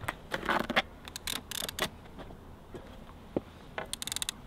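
Multiplier fishing reel's ratchet clicker ticking in quick runs as line is drawn off the spool while it is out of gear, with scattered knocks and taps as the rod is handled and laid down.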